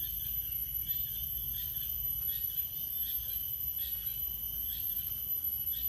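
Rural outdoor ambience: a steady high insect drone, with a short high chirp repeating about every 0.7 seconds over a low rumble.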